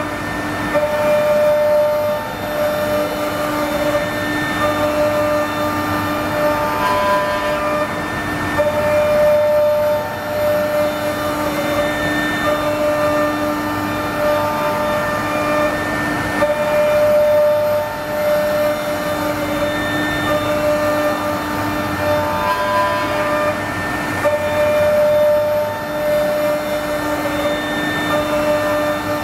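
Three-spindle woodworking CNC router milling a curved wooden panel with its tilted rotary spindle: a steady electric spindle whine over the rasp of the cutter in the wood. The whine's tones swell and fade every few seconds as the tool sweeps back and forth across the workpiece.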